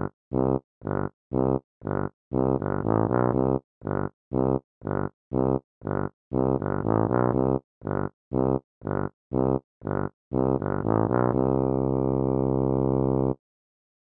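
Cartoon march tune played as a run of short, detached notes on a low, buzzy wind-like instrument. It ends on one long held note that cuts off suddenly.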